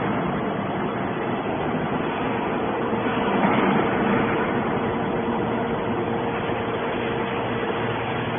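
Hydraulic metal shavings baler running: a steady machine hum with a constant drone from its pump and motor, swelling slightly about three and a half seconds in.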